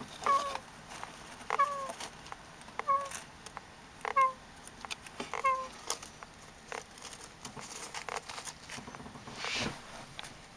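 A sleeping hamster snoring in short squeaks that fall in pitch, five in a row about one every 1.3 seconds. After that, only faint ticks and a brief soft rustle near the end.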